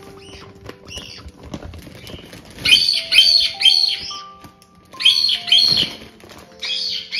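White-bellied caiques giving short, high-pitched chirping calls in quick runs of three or four, about three seconds in, again around five seconds and near the end. Light background music of single held notes plays underneath.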